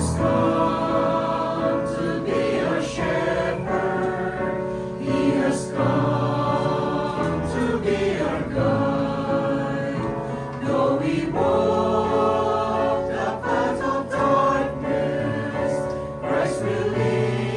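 Mixed church choir of men's and women's voices singing a gospel hymn together, in long held chords that change from phrase to phrase.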